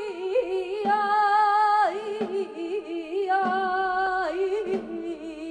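A singer drawing out a wordless, flamenco-style 'ay' melisma, the line wavering and ornamented between long held notes, with symphony orchestra accompaniment.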